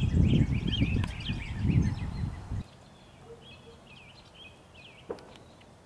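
Wind buffeting the microphone with a loud, uneven rumble that cuts off abruptly about two and a half seconds in. Songbirds chirp repeatedly throughout, and there is a single faint knock near the end.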